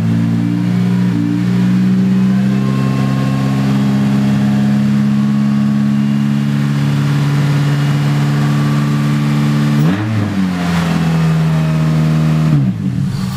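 Freshly swapped Honda K24 inline-four running on an open exhaust pipe, not connected at the header. It runs at a loud, steady idle just after starting, its pitch dips briefly and recovers about ten seconds in, then it is shut off near the end with its note falling away.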